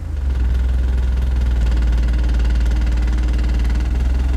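Two 24-inch Sundown Audio ZV.5 subwoofers in a large ported box playing a steady, very deep bass test tone that steps up slightly in pitch just after it begins. The metal wheeled cart under the box rattles and buzzes along with it.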